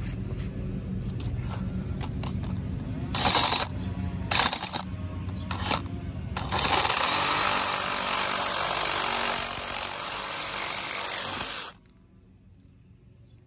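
Milwaukee Hackzall one-handed reciprocating saw with a metal-cutting blade sawing through a galvanized steel bracket clamped in a bench vise. After a steady low hum come a few short bursts, then one continuous cut of about five seconds that stops abruptly near the end, as the bracket is cut through.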